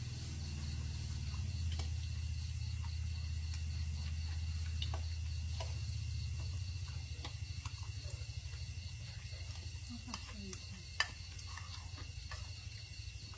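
Pork sizzling on a mookata grill pan, with scattered sharp clinks of a spoon on a bowl and metal tongs on the pan, the loudest about eleven seconds in. Under it run a steady low hum and a steady high trill of insects.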